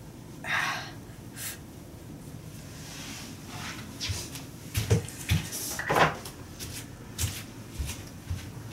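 A cabinet being opened and closed in a small room, heard as a cluster of knocks and bumps, the loudest about five and six seconds in, with rustling and footsteps around them.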